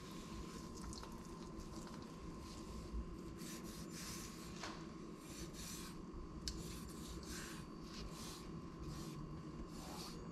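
Chef's knife slicing through raw chicken breast on a bamboo cutting board: a series of short, soft slicing and rubbing strokes, the blade now and then scraping the board, over a faint steady hum.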